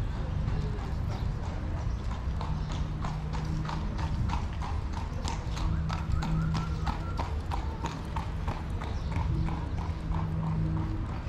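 Horse's hooves clip-clopping on the street in a quick, even rhythm of several strikes a second, over a steady low hum.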